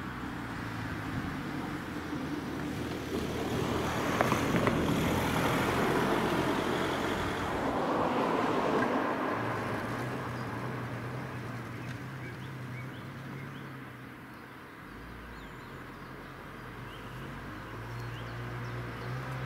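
Road vehicles passing by, two swells loudest about five and nine seconds in, over a low steady hum.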